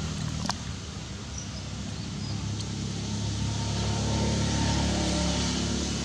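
A steady low engine hum, growing a little louder around four to five seconds in, with a single sharp click about half a second in.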